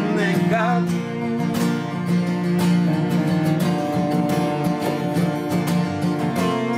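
Live acoustic music: an acoustic guitar strummed in a steady rhythm under long bowed cello notes. A singer holds the last word of a line in the first second, then the two instruments play on without voice.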